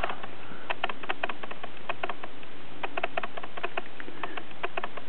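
Paper pages of a soft-cover booklet being handled, giving a run of small, irregular crackling clicks over a steady hiss.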